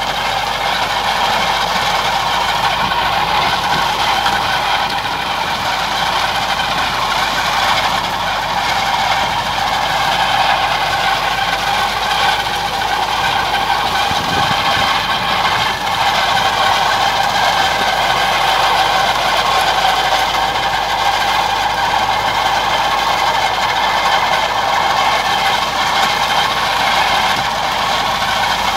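Tractor engine running steadily under load while it drives a trailed manure spreader that is flinging solid manure out of the back; a continuous, even mechanical din with no breaks.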